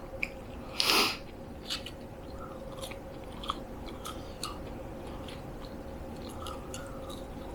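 A person chewing McDonald's food close to the microphone, with many small wet mouth clicks and smacks. About a second in comes one louder short rush of noise.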